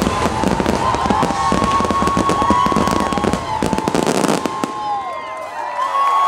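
Fireworks finale: a dense barrage of bangs and crackling that stops about four and a half seconds in. Crowd voices begin to rise near the end.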